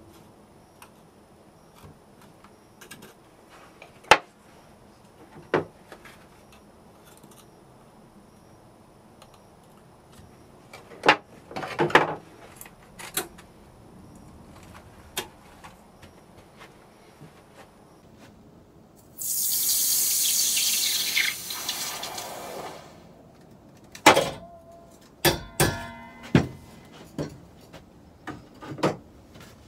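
Hot silver dropped into a bowl of water, hissing for about three seconds as it quenches, the hiss fading away. Scattered clicks and knocks of tools and handling before and after.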